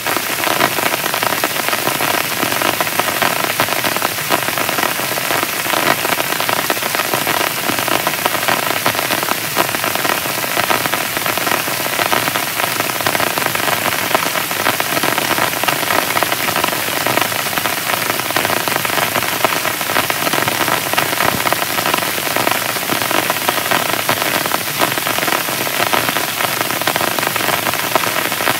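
Heavy rain falling on a tent: a dense, steady patter of many separate drop hits.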